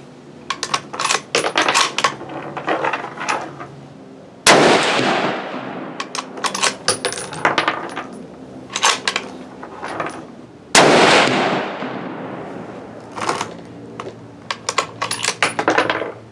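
Two shots from a Savage Axis bolt-action rifle in .243 Winchester, about six seconds apart, each with a long echoing tail. Between them come bursts of metallic clicks and clatter from the bolt being worked.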